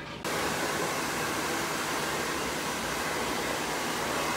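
Handheld hair dryer switched on just after the start and then running steadily with an even rush of blown air.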